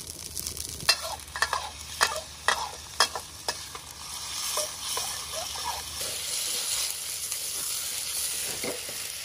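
Metal spatula scraping and knocking against a black wok as green chili peppers and sliced pork are stir-fried, about twice a second over the first few seconds. This is followed by a steady sizzle of the food frying in hot oil over a portable gas burner.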